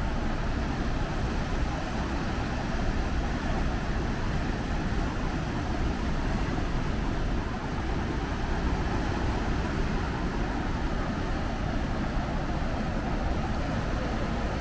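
Steady rushing noise of wind buffeting the microphone and surf on a rocky shore.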